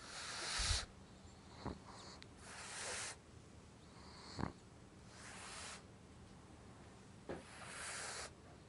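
Pug snoring while asleep: four breathy, hissing breaths about every two and a half seconds, with a short sharp snort between each pair.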